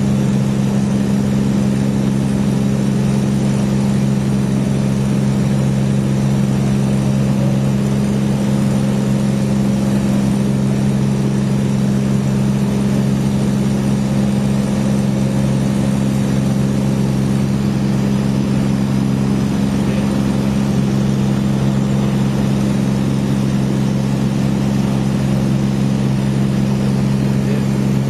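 Light high-wing propeller aircraft's engine and propeller droning steadily, heard inside the cabin: a constant low hum with two strong tones that hold the same pitch throughout.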